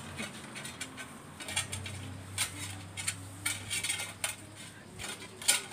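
A dog eating from a metal bowl: irregular clinks and scrapes of its teeth and tongue against the bowl as it licks and eats.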